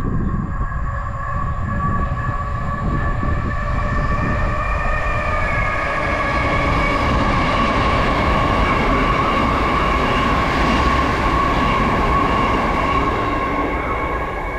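A c2c electric multiple-unit passenger train passing through on the through line, with the rumble of its wheels on the rails and a steady high whine that is strongest as it goes by in the middle.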